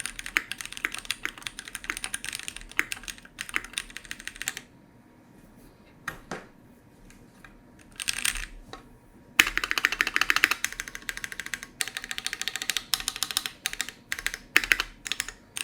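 Typing on a Keychron Q1 gasket-mount mechanical keyboard with Gateron Phantom Brown tactile switches: fast runs of key clacks, broken in the middle by a few seconds of only scattered single keystrokes before fast typing resumes.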